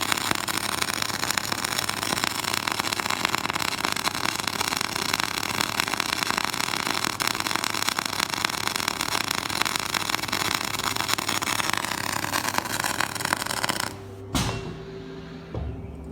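Electric welding arc crackling and sizzling steadily, then cutting off abruptly about fourteen seconds in, followed by a single click and a low hum.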